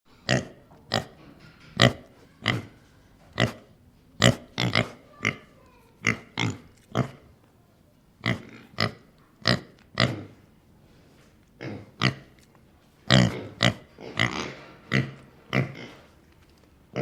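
An animal giving short, sharp calls over and over, about one or two a second, with a quicker run of them a little past the middle.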